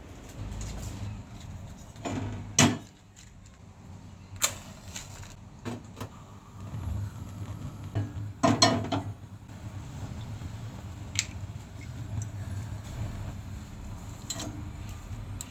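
Kitchen food-preparation sounds: a few sharp knocks and clatters of utensils and dishes over a low steady hum, the loudest about two and a half and eight and a half seconds in.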